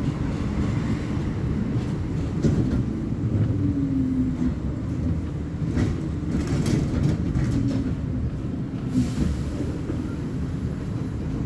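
Volvo B58 bus's diesel engine running steadily: a low drone with occasional clicks and rattles over it.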